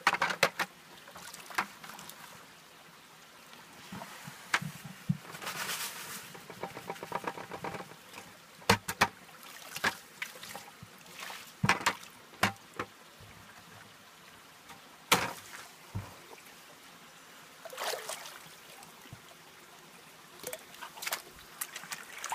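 Creek water splashing and sloshing as a plastic bucket of wet gravel concentrates is tipped out and rinsed into a plastic gold pan, then the pan is swirled in shallow water. Sharp, irregular splashes and plastic knocks break through a low wash of water.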